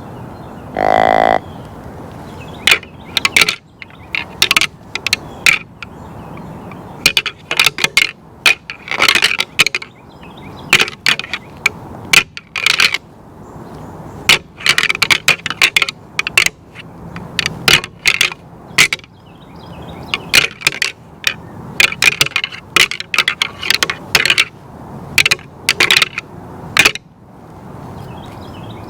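A short deer grunt call about a second in, then a pair of rattling antlers clashed and ground together in irregular bursts of clacks, imitating two whitetail bucks sparring to draw in a buck.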